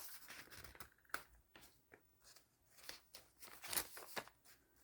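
Faint rustling and a few soft, scattered clicks of paper as the pages of a handmade junk journal are turned and handled.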